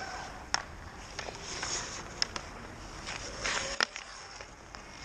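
Hockey skate blades scraping across outdoor ice, with sharp knocks of sticks striking pucks. The loudest crack comes a little before four seconds in.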